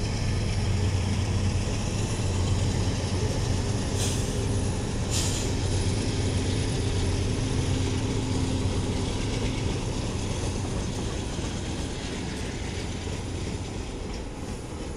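A consist of several diesel freight locomotives rolling past, with a low engine rumble and the running noise of wheels on rail that slowly fades. Two sharp knocks come about four and five seconds in.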